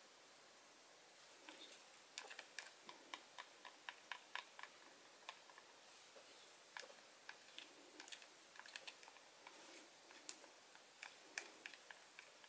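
Wooden craft stick stirring acrylic paint in a small plastic cup. Faint, irregular clicks and taps of the stick against the cup start about a second and a half in.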